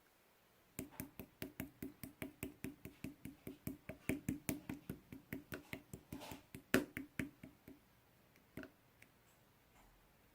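A rapid, even series of short knocks, about five a second, from a hand working a bubbly cola-ball toy, stopping after about seven seconds and followed by a few scattered clicks.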